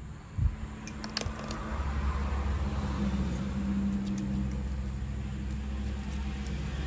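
A knock, then a battery-powered toy spider train starts up and runs with a steady low motor hum.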